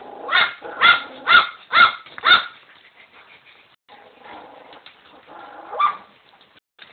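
A dog barking: a run of five sharp barks about half a second apart, then a single bark a few seconds later.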